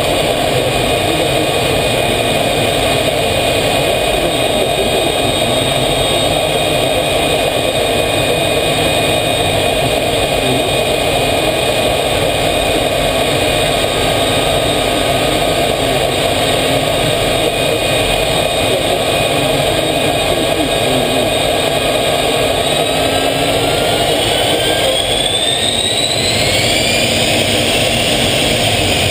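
Jet aircraft engine running steadily, heard from inside the cockpit, with a high whine over the engine noise. In the last several seconds the whine rises in pitch.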